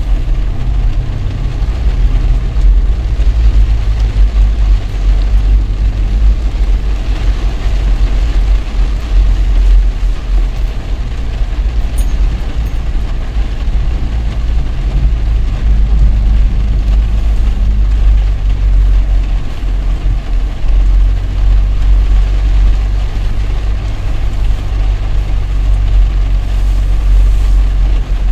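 Car cabin noise while driving in heavy rain: a steady low engine and road rumble with a hiss of rain and wet tyres.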